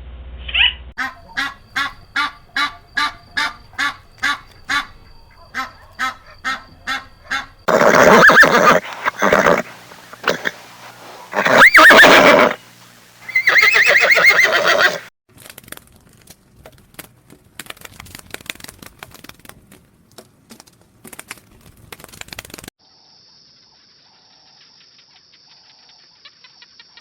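A string of animal sounds: first a quick run of short, evenly repeated pitched calls, then a horse neighing loudly several times. After that come scattered clicks, and near the end a steady high-pitched tone.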